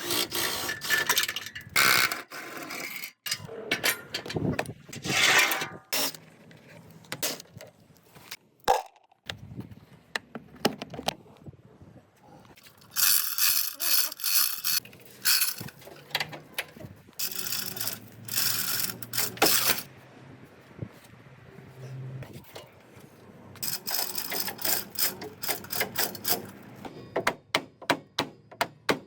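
Hand-tool work: repeated bursts of scraping, then a run of quick, regular clicks near the end.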